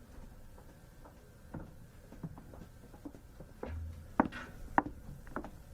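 A scattering of sharp clicks and knocks inside a stopped train carriage, the two loudest about four seconds in, with a brief low hum just before them.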